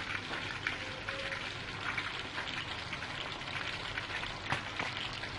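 A whole batter-coated chicken frying in hot oil: a steady sizzle full of fine, fast crackles, with the chicken nearly done as its second side browns.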